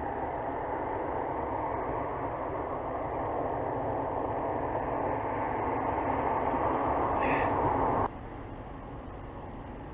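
A steady rushing noise that swells slightly, then cuts off abruptly about eight seconds in, leaving a fainter hiss.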